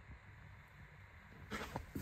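Quiet room tone, then a brief rustling scrape with a few soft knocks near the end, typical of a hand-held phone being moved.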